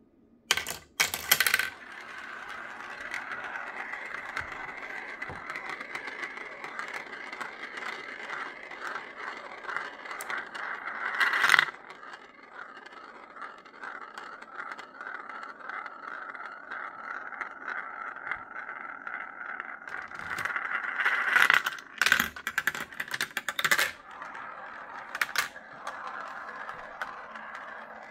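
Marbles rolling and spinning around clear plastic marble-run funnels and tracks, a steady rolling whir. Sharp clattering clicks come as they drop through and knock against the pieces: a burst about a second in, a louder one near the middle, and a run of clatters a few seconds before the end.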